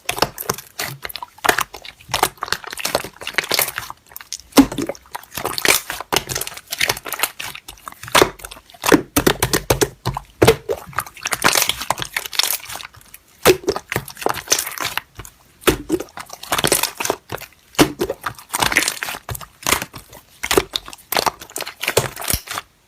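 Slime being squeezed, pressed and stretched by hand, giving dense, irregular crackling and crunching clicks. It cuts off suddenly near the end.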